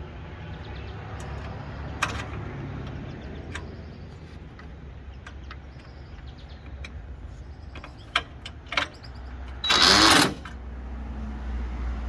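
Scattered sharp clicks and knocks over a low steady hum, with a loud rushing burst of noise lasting under a second near the end.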